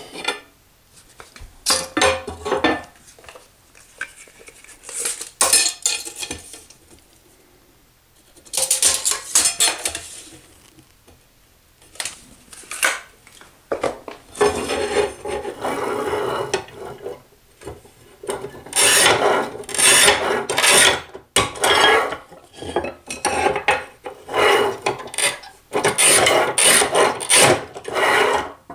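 Manual tile snap cutter scoring and snapping ceramic tile pieces: rasping scrapes of the scoring wheel across the tile, and clinks of hard tile being handled. The sounds come in several separate bouts and get busier and longer in the second half.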